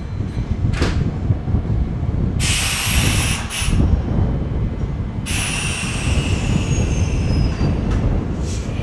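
Kintetsu limited express train standing at the platform with a steady low rumble. A loud hiss of air comes in about two and a half seconds in and stops about five seconds in, followed by a high tone gliding downward.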